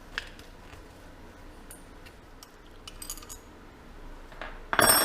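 Small metal brake parts being handled on a workbench: a few light clicks and clinks, then near the end a loud metallic clank that rings briefly as a metal part is set down.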